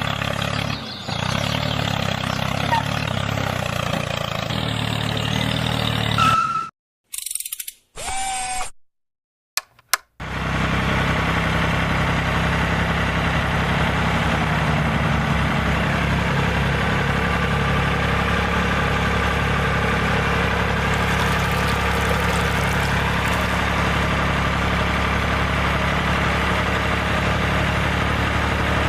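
Small electric motor running at a steady speed with an even hum, broken by a few short gaps about seven to ten seconds in.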